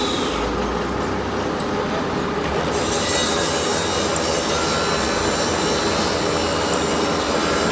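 Veneer glue spreader machine running: a steady mechanical noise from the turning rollers and drive, with a brighter high hiss joining about three seconds in.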